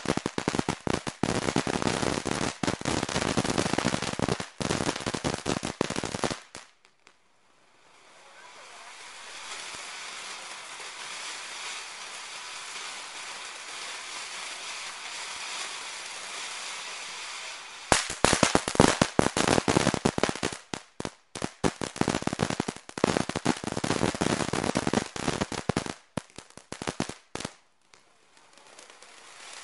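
Ground fountain fireworks spraying sparks: dense, rapid crackling that stops about six seconds in, then a steady hiss of a spraying fountain, then dense crackling again from a little past the middle, broken by short gaps.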